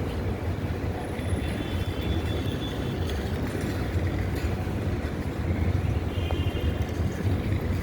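Steady low rumble of street traffic, with brief faint high-pitched tones twice.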